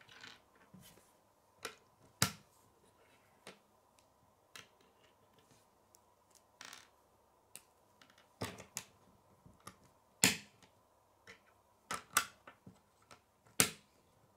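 Hard plastic K'nex rods and connectors clicking together and tapping on a wooden tabletop: irregular sharp clicks, a handful of them louder than the rest.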